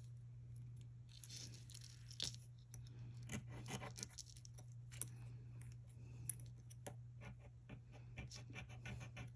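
Faint, irregular clicking and light jingling of two knotted-together necklaces, silver-tone chain with small glass beads, being handled and turned over, with a steady low hum underneath.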